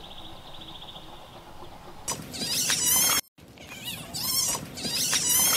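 Animal calls: loud, wavering high-pitched squeals that start about two seconds in, break off at a short cut and resume. Before them, a faint high pulsing trill.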